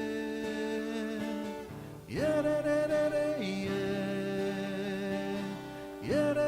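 Slow worship music with guitar and long held notes, a new phrase swelling in about two seconds in and again near the end.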